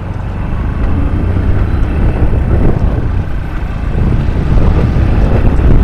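Motorcycle engine running under way, with wind rumble on the microphone, getting louder about a second in and again near the end. The rider says the bike's brakes are binding and holding it back.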